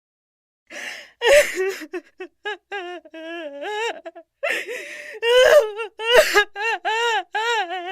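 A person's high-pitched wailing and whimpering in short, wavering, arching cries, broken by sharp gasping breaths; it begins about a second in.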